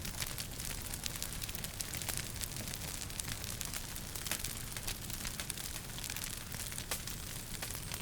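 Wood fire crackling in a fireplace: many small, irregular pops and snaps over a steady low rumble and hiss.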